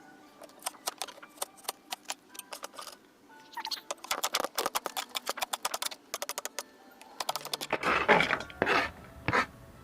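Knife chopping vegetables on a cutting board in quick, even taps, with a few louder scraping bursts near the end.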